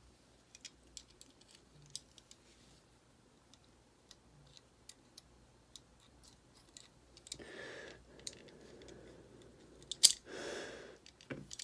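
Small metallic clicks and taps of a steel punch against the parts and frame of a Ruger Mark IV pistol while lining up a pin, with brief rustles of handling and one sharper, louder click about ten seconds in.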